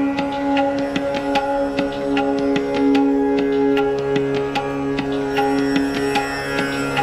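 Background music: a steady drone under a quick, even run of plucked or struck notes.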